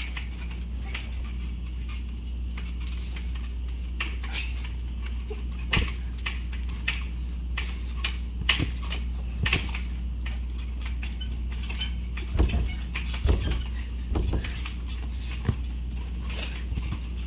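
Irregular thumps of a child bouncing, landing and rolling on a trampoline mat, the loudest few coming close together in the second half, over a steady low rumble.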